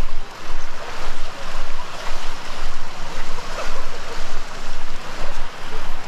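Sea surf washing onto a sandy beach, with wind on the microphone. The level swells and dips regularly about twice a second, the pace of walking.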